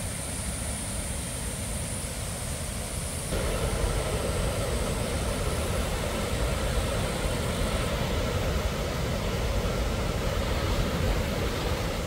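Waterfall cascades rushing: a steady roar of falling water that grows louder and fuller about three seconds in.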